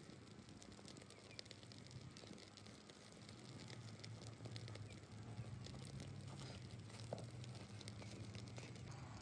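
Faint, irregular crackling of small fires burning dry stubble in a field. A low steady hum sits underneath from about three seconds in.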